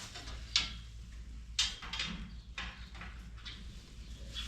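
Calf pen panels and pins being fitted together: a few sharp knocks and clanks, the loudest about a second and a half in.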